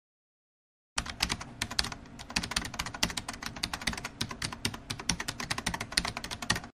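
Fast computer-keyboard typing, a rapid run of key clicks that starts about a second in and stops suddenly at the end.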